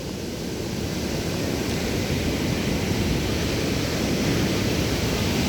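Big ocean waves breaking and washing up a beach in high surf: a steady rush of noise that swells slowly louder.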